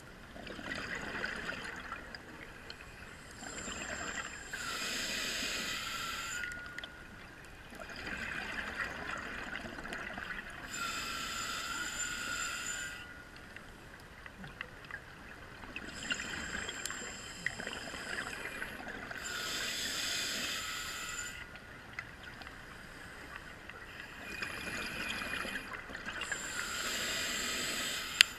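Scuba diver breathing through a demand regulator underwater. Each hissing inhale is followed by a rush of bubbling exhaust, in slow, regular cycles every six to eight seconds.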